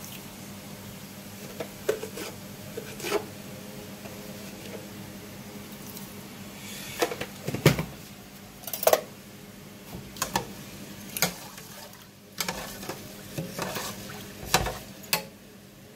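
A metal utensil stirring rice in water in a metal pot, knocking and clinking against the pot's sides in a string of sharp, irregular knocks that come thicker in the second half. A steady low hum runs underneath.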